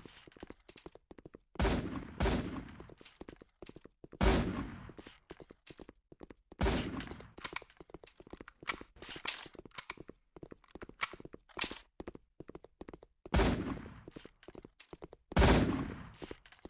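Slime being squished and slapped by hand: irregular sharp wet pops and crackles, with about six louder slaps among many small clicks.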